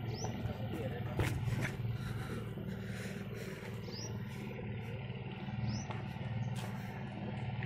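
Low, steady rumble of wind buffeting a phone microphone, with a few short high rising chirps.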